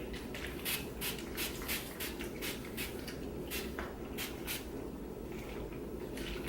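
Pump spray bottle of heat-protectant mist being squeezed again and again, giving quick hissing squirts about two or three a second.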